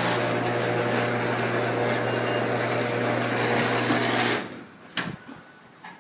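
Sears 139.53708 chain-drive garage door opener running with a steady motor hum and rattle, then cutting off about four and a half seconds in, followed by a sharp click.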